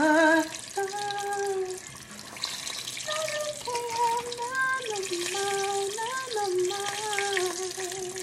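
A man humming a tune without words in long, wavering held notes, over a steady hiss of battered mushroom pieces frying in oil.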